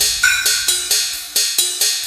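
Electronic dance music with the heavy bass cut out, leaving a percussion break of evenly spaced drum hits under bright hi-hats and cymbals, with a short held high note early on.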